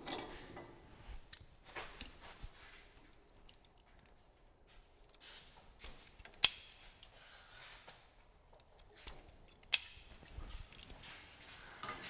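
Hands working on wiring under a truck: light rustling and small clicks, with two sharp snaps about three seconds apart, the first near the middle and the second a little later.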